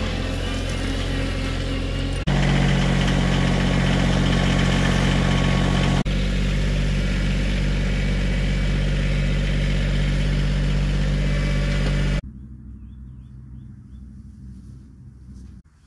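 Compact farm tractor engine running steadily. About twelve seconds in it drops suddenly to a much quieter level.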